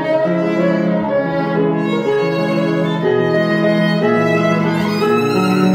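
Violin and grand piano playing together: a bowed violin melody of held notes over piano accompaniment.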